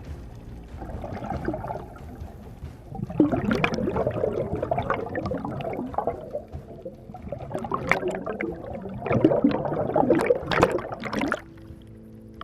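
Scuba diver's exhaled bubbles gurgling out of the regulator underwater, in two long bursts of a few seconds each.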